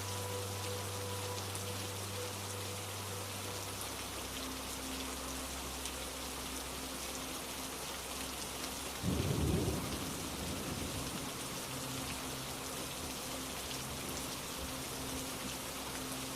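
Steady heavy rain falling, with a short low rumble of thunder about nine seconds in that fades over a second or two.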